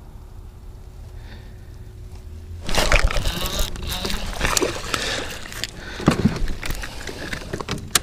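A small bass being landed and handled aboard a fishing kayak: after a low steady rumble, a sudden burst of splashing, knocking and rustling begins about three seconds in and continues with irregular clicks and knocks.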